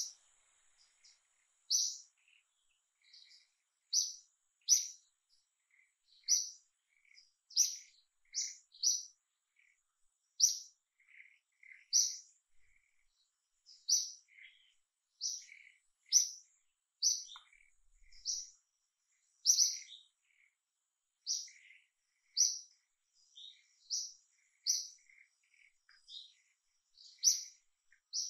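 A bird chirping: short high chirps repeated about once every second or so, with fainter, lower chirps in between.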